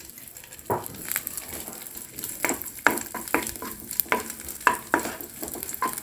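Raisins frying in ghee in a non-stick pan, a steady sizzle, with a spatula scraping and knocking against the pan in quick irregular strokes as they are stirred.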